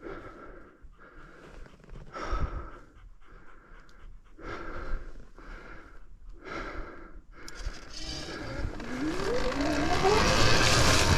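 Heavy, rhythmic breathing close to the microphone, about one breath every two-thirds of a second. About eight and a half seconds in, the Sur-Ron Ultra Bee electric dirt bike pulls away: its motor whine rises steadily in pitch and the rush of riding noise grows louder.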